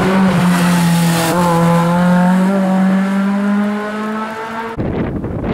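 Alpine A110 rally car's four-cylinder engine held at high, steady revs as it drives through a hairpin, with a brief dip in pitch about a second in. Near the end it gives way abruptly to wind buffeting the microphone.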